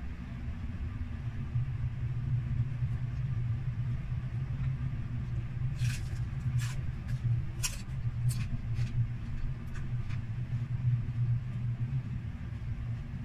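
Crunchy bites of deep-fried chicharon bulaklak being chewed: a run of sharp crackles about six to ten seconds in, over a steady low hum.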